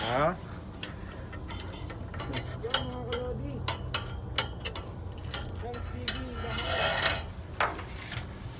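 Irregular light metallic clicks and taps as the fan blades of a Hawker 900XP engine are handled by a gloved hand during a bird-strike inspection, over a steady low hum, with a brief hiss about seven seconds in.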